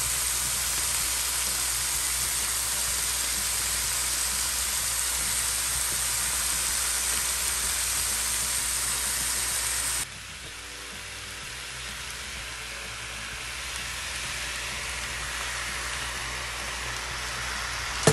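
Nopales, tomato, onion and green chiles sizzling in oil in a stainless steel pan, a steady frying hiss. About ten seconds in it drops abruptly, then slowly grows louder again. A single sharp click comes right at the end.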